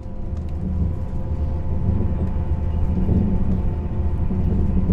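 Steady low rumble of a moving vehicle, with a faint steady hum of several tones above it.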